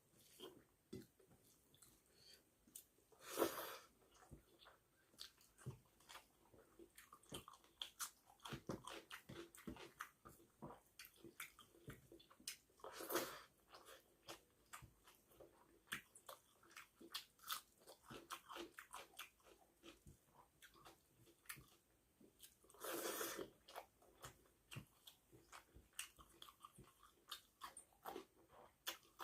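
Close-miked chewing of rice and fish curry, with many small wet mouth clicks and smacks. Three louder brief noisy bursts come roughly ten seconds apart.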